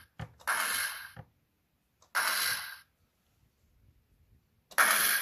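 Electronic grenade-launcher sound effect from the Nerf M41A Pulse Rifle's sound board, played through a small metal-domed speaker, heard as three short noisy bursts of about half a second each, a second or two apart.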